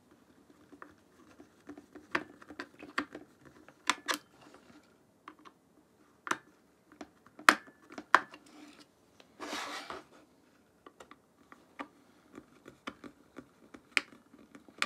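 Small, sharp clicks and taps of a Nikon Z50's rear panel and flip-down screen being handled and pressed into place, scattered irregularly, with a brief soft rustle a little before ten seconds in.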